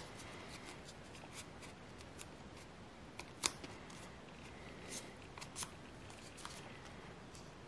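Origami paper handled and creased as a crane is shaped: scattered crisp crinkles and rustles, with one sharper crackle about three and a half seconds in.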